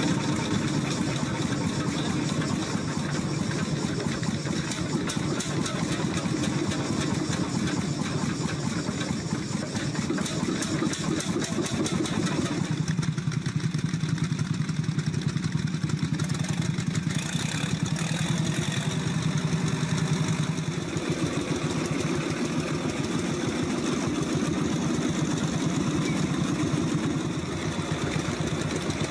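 An old engine running steadily with a rapid, even firing rhythm. Its tone shifts for several seconds around the middle.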